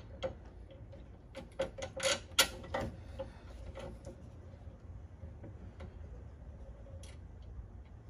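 Scattered light clicks and knocks from hand-and-tool work on the truck's sheet-metal radiator support, most of them in the first three seconds, then only a few faint ticks.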